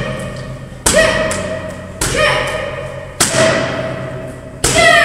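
Four sharp smacks of kicks and punches landing on a focus mitt, about one a second, each ringing on for about a second in a bare hall. A short shout with a falling pitch comes with the last strike.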